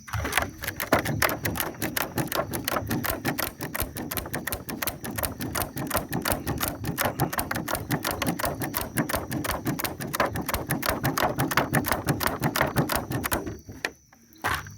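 São João bonfire of dry twigs and brush catching alight, crackling in a dense, rapid run of pops. The crackling stops abruptly near the end.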